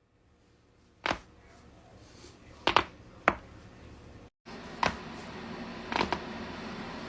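Human joints cracking: sharp, single pops about a second or so apart, several of them coming as quick double cracks.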